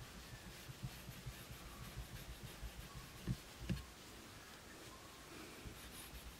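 Faint rubbing and handling noise from a microfiber cloth wiping and pressing on the glass of a stick-on wide-view rear-view mirror, with two soft knocks a little past halfway.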